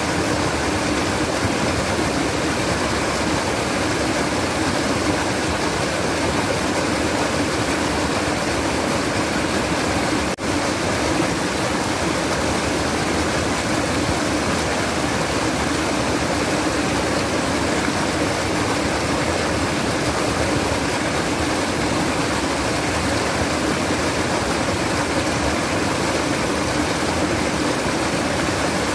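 Babbling stream, water flowing steadily, with a momentary break about ten seconds in.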